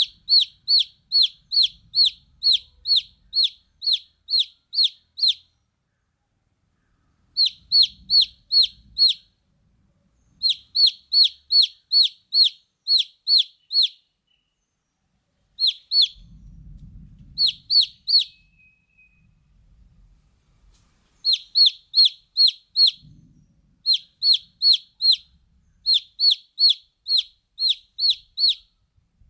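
Baby chicks peeping: runs of sharp, high, falling peeps at about three a second, broken by pauses of one to two seconds.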